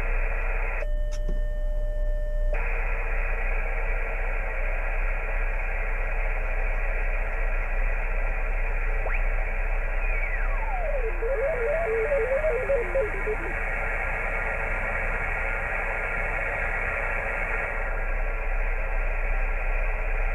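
HF ham radio receiver hissing with band static through its speaker while the tuning dial is turned on a dead 20-metre band, with no stations coming in. About a second in, the hiss drops out under a steady beep lasting about a second and a half. Around halfway, a whistle slides down in pitch into a few garbled warbles as the tuning passes a signal.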